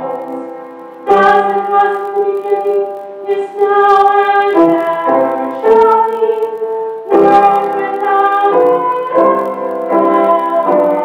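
Church organ playing a slow succession of sustained chords.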